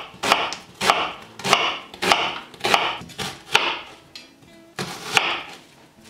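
Kitchen knife slicing an onion into half-rings on a wooden cutting board: a steady run of cuts, each ending in a sharp knock of the blade on the wood, a little more than one every half second, with a brief pause about four seconds in.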